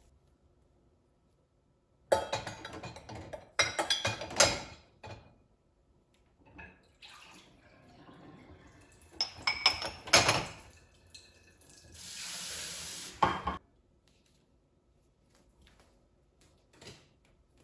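Dishes and cutlery clattering and clinking in bursts, with a tap running briefly later on.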